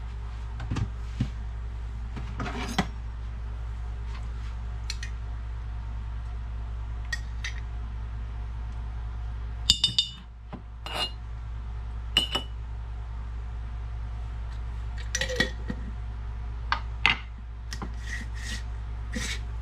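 A metal spoon clinking and scraping against glass jars as minced garlic is spooned into a mason jar. The clicks are scattered, with two ringing glass taps about halfway through, over a steady low hum.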